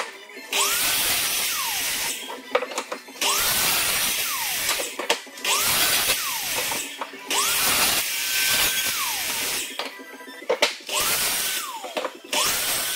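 Sliding compound miter saw cutting larch boards several times in a row: each time the motor whines up to speed, cuts noisily through the board, then whines down as the blade stops. Background music plays underneath.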